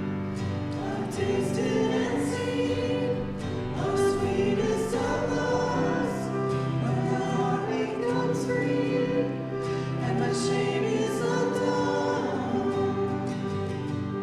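Voices singing a hymn or Christian song together with instrumental accompaniment.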